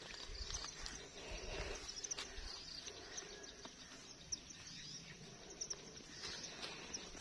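Faint outdoor ambience: a few short bird chirps and light rustling in grass, with a low rumble in the first couple of seconds.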